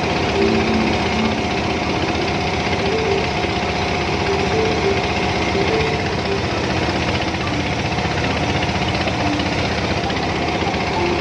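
A boat engine running steadily with a fast, even beat.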